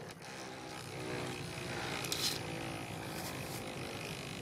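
Bloody Longinus Beyblade top spinning on a plastic stadium floor: a steady whirring rub with a faint whine, and two light ticks about two and three seconds in.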